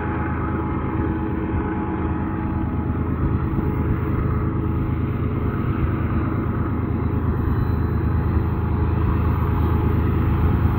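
BNSF diesel freight locomotives running, a steady low engine drone with a few held tones above it, growing slowly louder as the train approaches.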